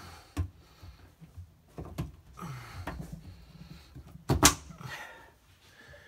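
Hands working the rubber door seal of a Miele washing machine onto the rim of the front panel: scattered soft knocks, rubbing and clicks, with one louder sharp knock about four and a half seconds in.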